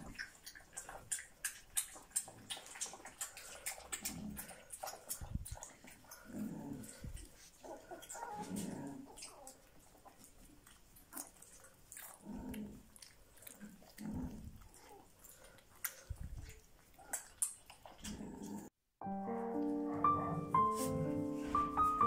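Several puppies eating and jostling at food bowls: short grunts, whimpers and small growls over many quick clicks. About nineteen seconds in, the sound cuts out and piano music begins.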